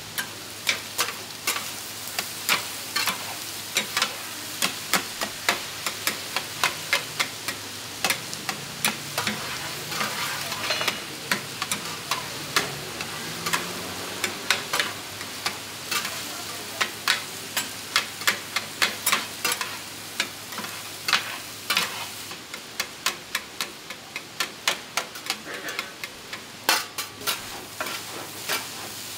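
Diced tofu frying in a large round pan with a steady sizzle, while a metal spatula and a wide metal scraper clack and scrape against the pan in quick runs of sharp strikes, about one to two a second.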